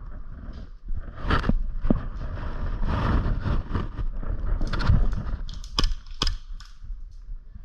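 An airsoft player moving on foot: a low rumble of handling on the microphone and rustling, with several sharp cracks, the clearest two close together near the end.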